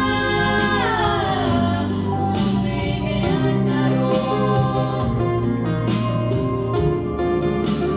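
Three girls singing a song together over instrumental accompaniment with a steady bass line; their held notes slide down together about a second in.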